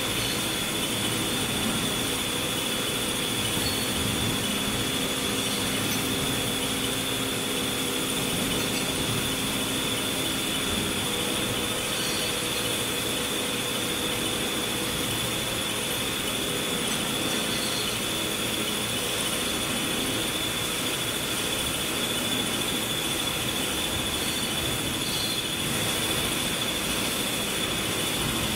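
Workshop machinery running steadily: an even mechanical hum with a continuous high-pitched whine over it.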